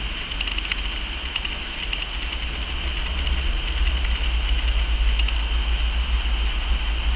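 Steady low rumble under a constant high hiss, with a few faint ticks: background noise with no distinct event.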